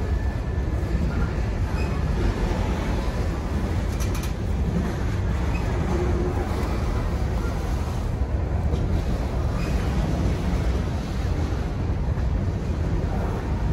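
Freight train passing, a steady low rumble with a few faint clicks.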